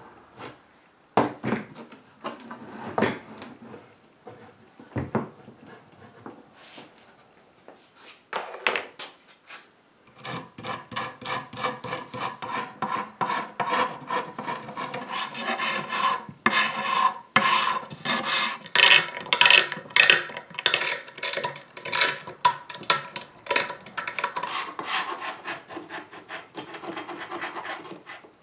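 A metal tool rasping and scraping at an old dowel hole in an oak table leaf, in rapid continuous strokes from about ten seconds in. Before that come a few separate knocks.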